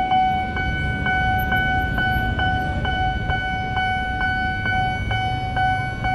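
Railway level-crossing warning bell ringing steadily, about two strokes a second, the signal that the barrier is down and a train is due. Low street-traffic rumble underneath.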